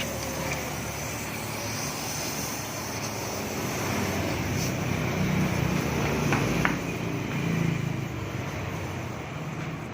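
Yamaha Mio i scooter's single-cylinder engine running through a fitted Yamaha Aerox stock muffler. It idles, rises in a short rev about halfway through, then settles back down.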